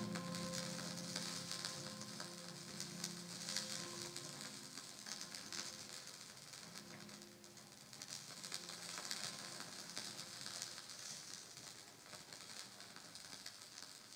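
Laptop-performed electronic music: a dense, fine crackling noise texture like sizzling, with a few held low tones that die away in the first seconds, the whole slowly fading out.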